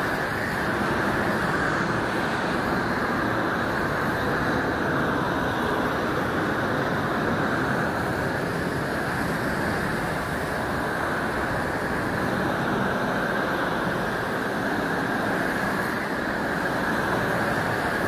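LPG gas torch fed from a cylinder, its open flame burning with a steady, unbroken rushing noise as it is played over a concrete floor.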